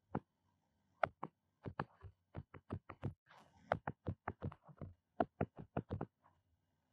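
Pen stylus tapping and clicking on a tablet screen while writing: an uneven run of short, sharp taps, several a second, with a pause after the first one.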